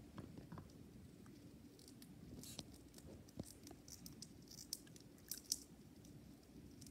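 Dwarf hamster nibbling and cracking seeds: a faint scatter of small crisp clicks and crunches, thickest in the middle, over a low steady hum.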